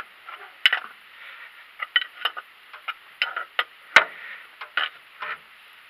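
Spanner clicking and clinking against the nut of the oil centrifuge cap on a YaMZ-238 diesel as it is tightened down: scattered sharp metallic clicks, with one louder knock about four seconds in.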